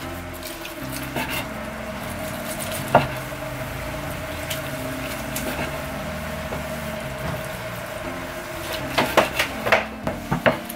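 Kitchen knife cutting through boiled pork and knocking on a wooden cutting board: one sharp tap about three seconds in, then a quick run of taps near the end as the slices are gathered with knife and tongs.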